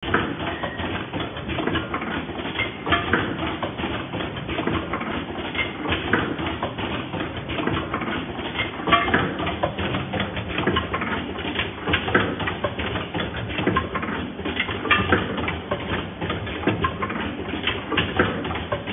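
Automatic rotary riveting machine running: a dense, steady rattle of small metal parts in its vibratory bowl feeder, with many sharp clicks and clacks from the working stations.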